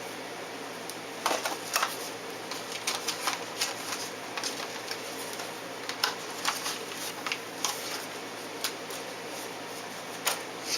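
Irregular small clicks and taps of thin phone-line wire and scissors being handled, with a quick cluster of louder clicks between one and two seconds in, over a faint steady hiss.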